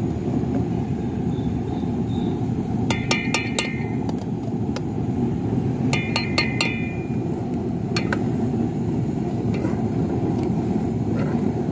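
Metal spoon clinking and scraping against a steel tumbler while scooping paste out of it: two short runs of ringing clinks, about three and six seconds in, with a few single taps later. A steady low rumble runs underneath.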